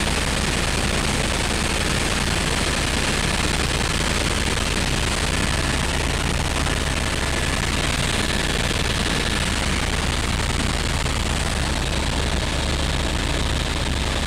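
Helicopter in flight heard from inside the cabin: steady, loud rotor and engine noise with a rapid low beating from the rotor blades under a constant rushing hiss.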